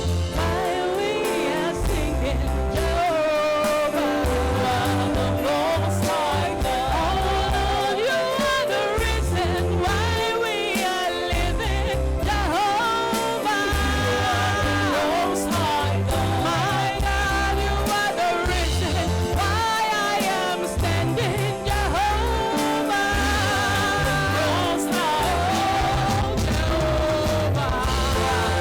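Live gospel worship music: a singer's voice sliding through long, bending notes over sustained chords and a pulsing bass.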